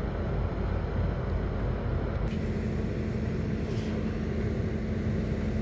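An engine running steadily, a low drone with no let-up; about two seconds in, a steady hum joins it.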